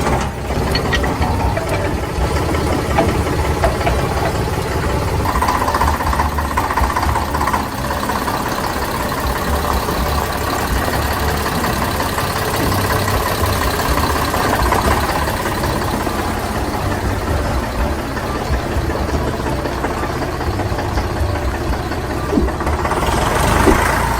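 Small motor of a DIY mini tractor running steadily, with a rattly texture throughout and getting a little louder near the end.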